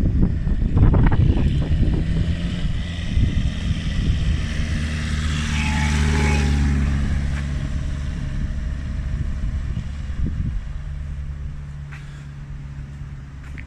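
Austin Seven special's engine running, with sharp revs in the first two seconds and then a steady note that slowly fades away.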